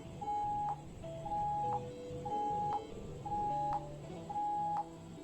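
Morse code tone from a Morse telegraph app sending the digit zero: five long beeps (dashes) at one steady pitch, evenly spaced about a second apart.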